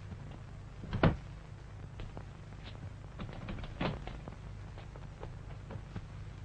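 A door shutting with a sharp knock about a second in. Then light taps and clicks of footsteps crossing a small room, bunched around three to four seconds in. A steady low hum runs underneath.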